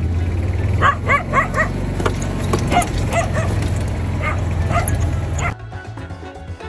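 Small dog yapping: a quick run of four high-pitched barks about a second in, then a few more spaced out, over a steady low hum. The sound drops away abruptly near the end.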